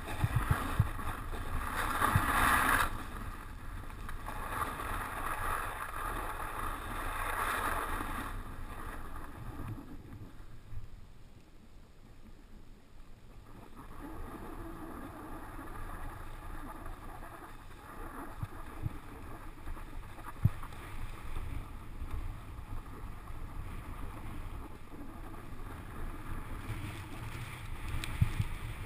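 Snowboard sliding and scraping over packed snow, heard through a helmet-mounted GoPro with a steady low rumble of wind on the microphone. The scraping hiss comes in two strong surges in the first eight seconds, then eases off, with a few sharp knocks later on.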